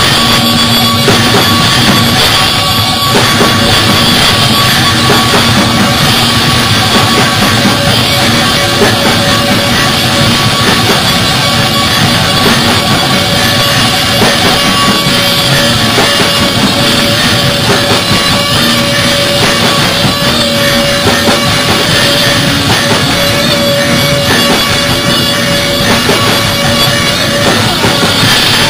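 A rock band playing live and loud: drum kit with electric guitars in a dense, unbroken wall of sound.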